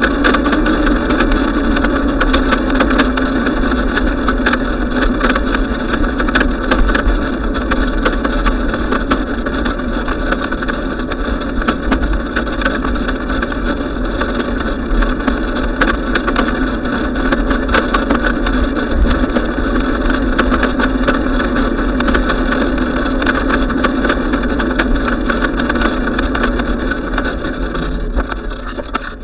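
Steady wind rush and bicycle tyre noise on asphalt, picked up by a bike-mounted camera's microphone, with many small rattling clicks. The noise drops off near the end.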